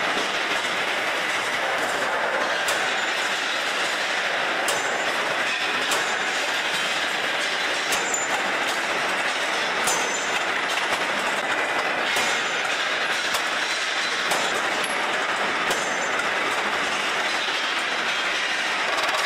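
Steel-bar cutting and handling machinery running: a steady dense metallic noise with scattered sharp clinks of steel on steel.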